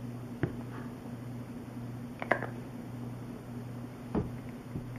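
Plastic glue bottle being squeezed and handled over card: a few soft clicks and knocks, the loudest about two seconds in, over a steady low hum.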